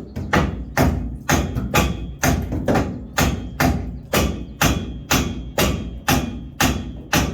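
Hammer striking a stuck part of a Jeep Comanche's rear bumper mounting over and over, about two blows a second at a steady pace, each blow with a short metallic ring. The part is seized and will not drive out.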